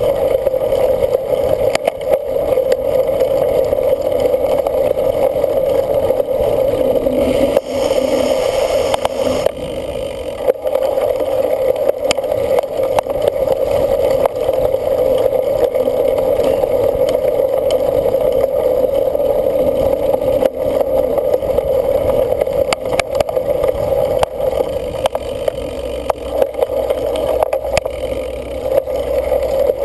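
Cyclocross bike ridden hard over rough ground: a steady drone of tyre and wind noise broken by frequent knocks and rattles over bumps, with a brief hissing swell about eight seconds in.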